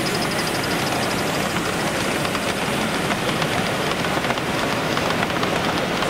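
Large-scale model trains running on an exhibition layout, with the rattle of wheels on track over the steady noise of a busy hall. A fast, high-pitched ticking fades out in the first second or so.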